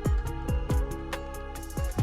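Background music with an electronic beat: deep kick-drum hits that fall in pitch, over held notes and sharp high percussion.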